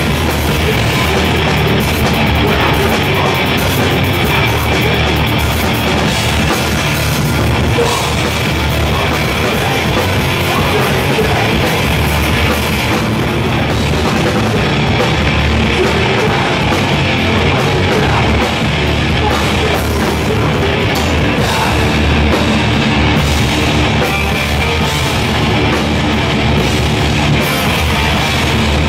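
Hardcore punk band playing live, loud and without a break: distorted electric guitar over a pounding drum kit.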